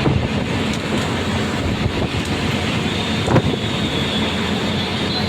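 Ride noise of a moving bus heard from inside: a steady road and engine rumble, with a knock right at the start and another about three and a half seconds in. A faint high whine comes in for the last couple of seconds.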